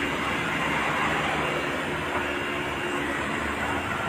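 Dump truck's diesel engine running steadily with road noise, heard from inside the cab while driving.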